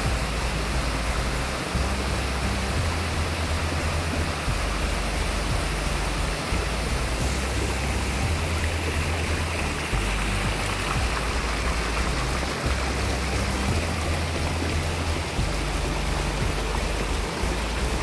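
Waterfall and creek water rushing steadily over rock ledges, with background music's slow low notes underneath.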